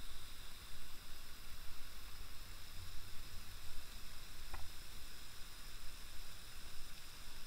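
Steady rushing noise of a waterfall, with a low rumble underneath and a high steady hiss above, and one faint click about four and a half seconds in.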